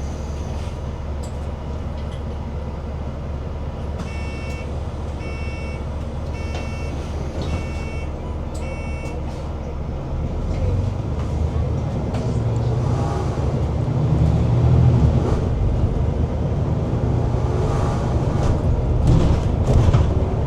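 Bus ride heard from inside the cabin: steady engine and road rumble. A string of short electronic beeps sounds about a quarter of the way in, and from about halfway the engine rumble grows louder as the bus picks up speed.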